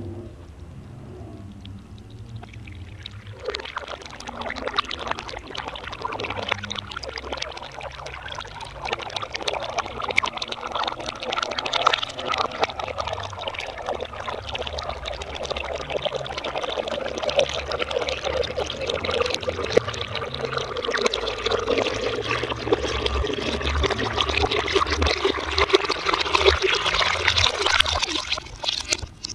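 Water pouring from a clay jar into a metal pot, splashing and bubbling. The stream starts about three seconds in and runs steadily, getting louder toward the end.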